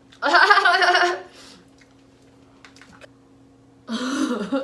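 A woman's loud sneeze about a quarter second in, lasting about a second, then a cough starting near the end.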